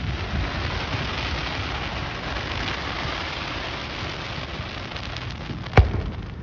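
Dense, rain-like crackling of firework stars sparkling as they fall from an aerial burst, fading slowly, with one sharp firework bang near the end.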